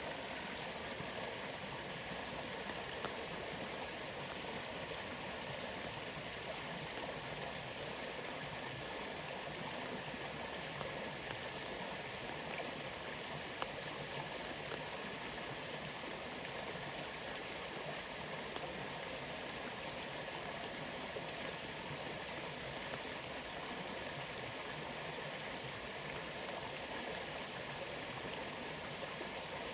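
Steady rush of a rainforest waterfall, with a few sharp ticks now and then.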